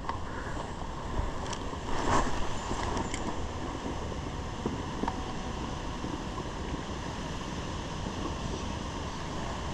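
Steady rush of a flowing stream mixed with wind buffeting the microphone, with a few faint clicks and knocks about two to three seconds in.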